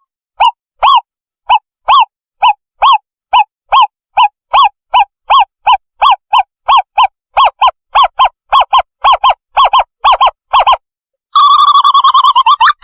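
Owlet lure call: a quickening series of clear, separate whistled hoots that speeds from about two to three a second, breaking off about eleven seconds in into a fast chattering trill.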